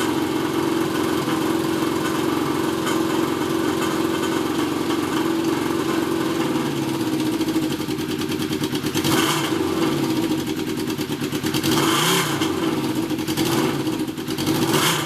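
1981 Honda CB750's air-cooled inline-four engine running at a steady idle, then revving up and down several times from about seven seconds in, with louder surges near the middle and again a few seconds later.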